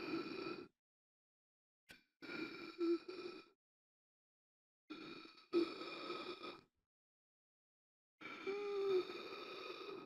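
A person gasping for air: four labored breaths, each one to two seconds long, with dead silence between them.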